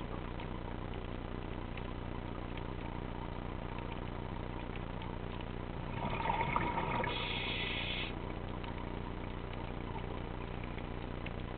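Underwater recording with a steady low drone throughout. About six seconds in, a scuba diver's exhaled breath rushes out of the regulator as bubbles for about two seconds.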